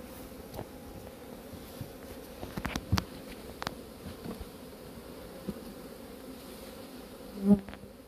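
Honeybees buzzing steadily over open, crowded hive boxes, with a few sharp wooden clicks around the middle as a hive tool pries at the frames, and a brief louder burst near the end.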